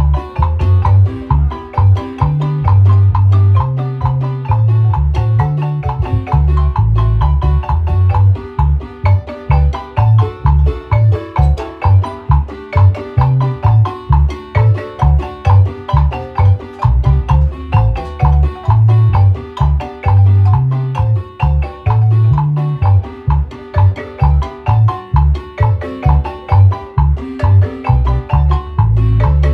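Guatemalan marimba music: mallets striking wooden bars in a fast, steady rhythm over a strongly pulsing bass line.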